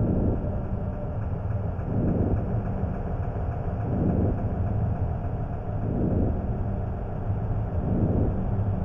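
Dark ambient background music: a low, steady rumbling drone that swells about every two seconds.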